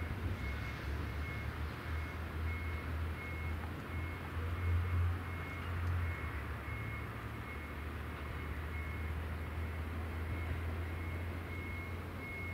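Low, steady diesel engine rumble of a KiHa 189-series railcar as it pulls away down the line, with a faint high beep repeating at an even pace.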